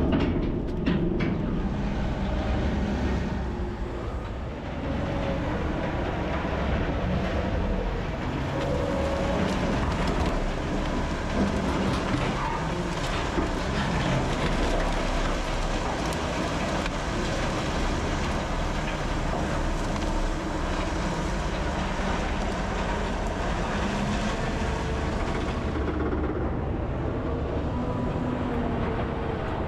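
Heavy diesel equipment running steadily under load: the wood grinder and wheel loader at work, with a few knocks in the first couple of seconds.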